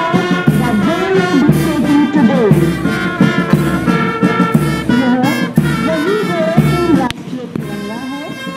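Brass band playing march music over a steady bass-drum beat. About seven seconds in the music breaks off sharply and goes on more quietly with held notes.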